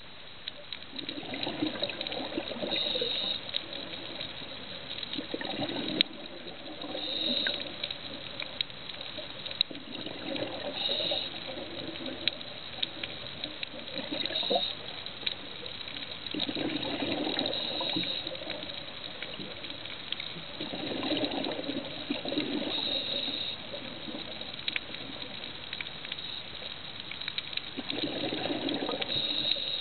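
Scuba regulator breathing underwater: gurgling bursts of exhaled bubbles every few seconds, with scattered sharp clicks between them.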